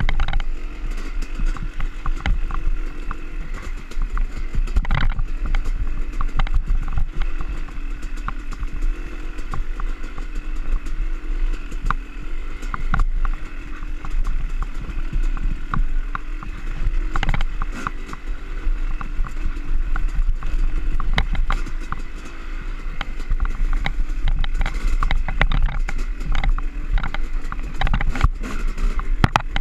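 Yamaha YZ250 two-stroke dirt bike engine running on a rough trail, its note wavering with the throttle, with frequent knocks and clatter from the bike jolting over the rough ground.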